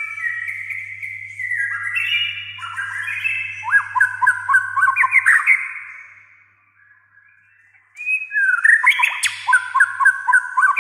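White-rumped shama singing: a phrase of varied whistled notes that ends in a fast run of sharp repeated notes, a pause of about two seconds, then a second burst of rapid repeated notes near the end.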